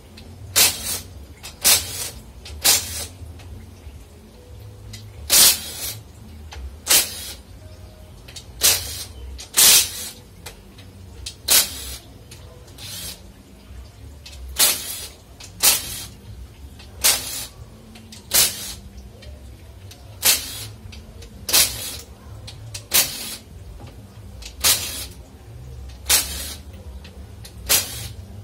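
Power ratchet run in short bursts, about one every second or two, backing out the valve body bolts of a Ford 4R70W automatic transmission.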